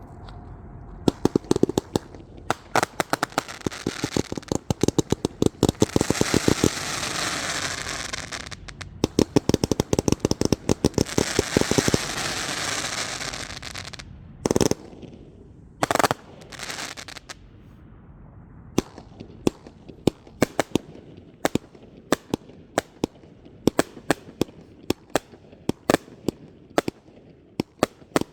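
Red Apple consumer fireworks going off: dense rapid crackling pops over a rushing hiss for about the first half, two louder bangs near the middle, then scattered single pops about twice a second.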